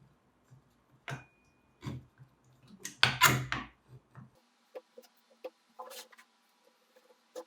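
Scattered knocks and clicks of hard objects being handled, with the loudest clatter about three seconds in.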